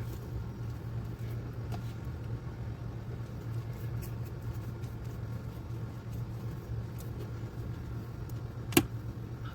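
A steady low hum, with faint scattered ticks and one sharp click near the end.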